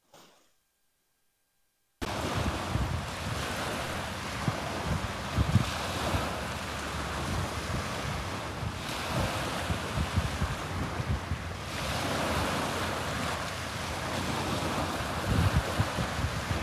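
Wind buffeting the microphone in gusts over a steady wash of small waves on the shore, starting about two seconds in.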